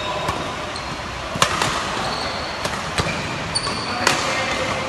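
Badminton doubles rally: sharp racket strikes on the shuttlecock, roughly one every second or so, with short high squeaks of court shoes on the floor between them.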